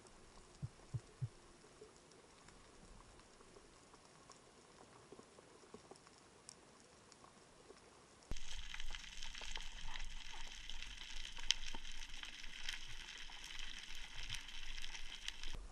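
Underwater sound through a diving camera: faint water ambience with three soft low knocks near the start. About halfway in, a sudden dense crackle of fine clicks begins, the crackling of a rocky seabed heard underwater.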